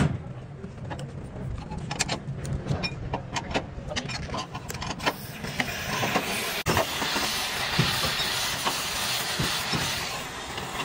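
Scattered light clicks and knocks over a low hum, then from about halfway a steady hiss that carries on.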